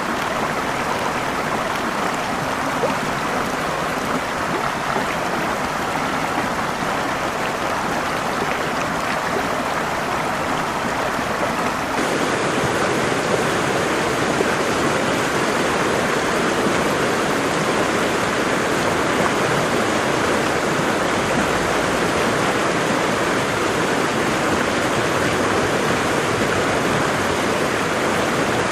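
Waterfall water rushing in a steady, even hiss. About twelve seconds in the sound changes abruptly to a slightly louder, fuller rush.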